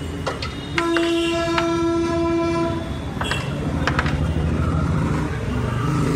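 A horn sounds one steady, high note for about two seconds, starting about a second in, over street noise. Later a metal spoon clinks a few times against a steel plate as masala is scooped, while a low engine rumble rises.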